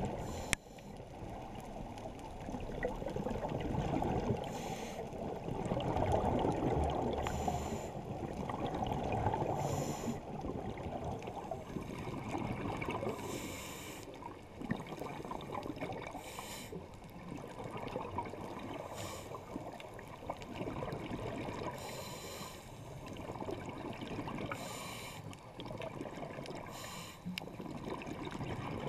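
Scuba breathing heard underwater through a GoPro Hero3+ housing: a muffled low bubbling rumble, with a short hiss recurring about every two to three seconds.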